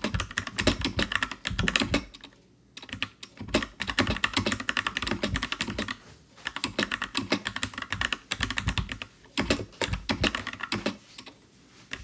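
Typing on the Freewrite 3rd-generation smart typewriter's mechanical keyboard, Kailh Box Brown switches under OEM-profile keycaps: fast runs of key clacks broken by a few short pauses, the longest near the end.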